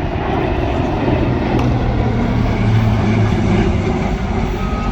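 Aircraft engine noise in flight: a loud, continuous drone with a low hum that swells through the middle.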